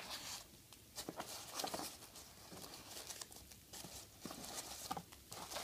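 Faint rustling and crinkling of packaging being unwrapped by hand: an uneven scatter of small crackles and rustles.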